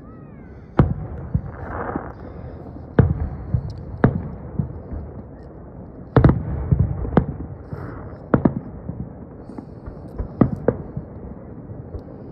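Aerial firework shells bursting at a distance: about ten sharp bangs at irregular intervals of roughly one to two seconds, each followed by a low rumbling echo.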